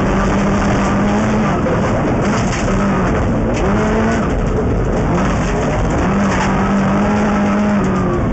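Subaru STI rally car at speed on gravel, heard from inside the cabin: the turbocharged flat-four engine revs up and down as the driver shifts and slides, over a steady roar of tyres on loose gravel. Stones rattle against the body, and near the end gravel sprays the windscreen.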